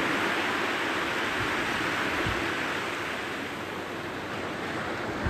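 Small waves of a calm sea breaking and washing up a sandy beach: a steady hiss of surf that eases off and then swells again near the end.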